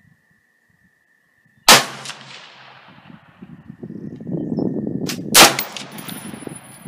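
Two shots from a 20-inch-barrelled AR-15 rifle chambered in 6x45 (6mm-223), fired from a bench rest about four seconds apart, each a sharp crack with a brief fading tail.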